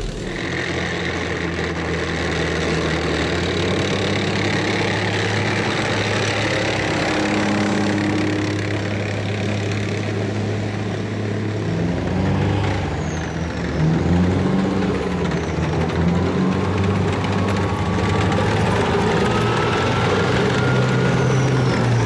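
Type 73 armoured personnel carrier's Mitsubishi two-stroke V4 diesel running as the tracked vehicle drives. The engine note is steady at first, then rises and falls in the second half, with a faint rising whine near the end.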